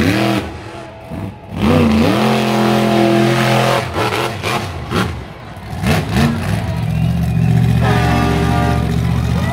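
Monster truck engine revving hard, its pitch rising and falling with the throttle as it launches a jump, with heavy thuds about four and five seconds in as the truck lands over crushed cars. Near the end the engine holds a steady high note.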